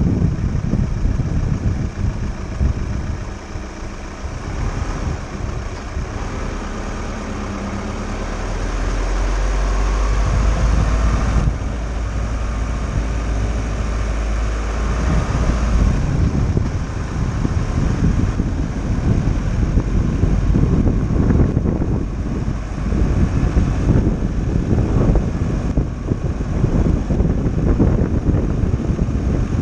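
VW T6 camper van driving down a steep single-track road: steady engine and tyre rumble. A deep low hum comes in about eight seconds in and drops away around sixteen seconds. The second half has gusty wind rumble on the microphone.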